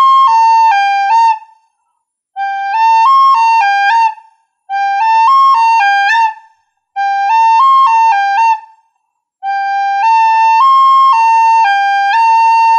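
Plastic soprano recorder playing the same short phrase of stepped notes, G, A, high C, A, G, A, slowly and in one breath each time, repeated several times with short pauses between.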